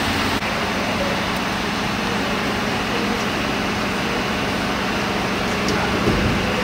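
Steady mechanical drone: a low hum over a wash of noise, such as an idling heavy engine or ventilation machinery makes. It briefly dips about half a second in.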